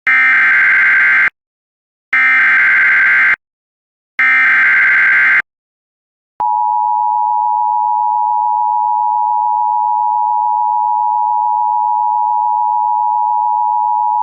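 Emergency Alert System SAME header: three buzzy digital data bursts, each about a second long, announcing an emergency alert. A second later comes the EAS attention signal, a steady two-tone 853/960 Hz tone held for about eight seconds.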